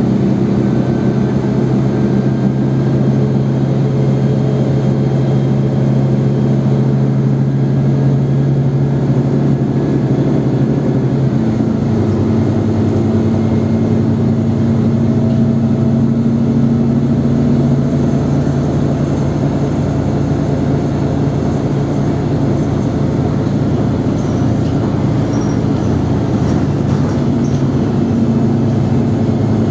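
Mercedes-Benz O345 Conecto G articulated bus's OM457hLA six-cylinder turbodiesel idling steadily. About twelve seconds in, the engine note drops a little and holds there.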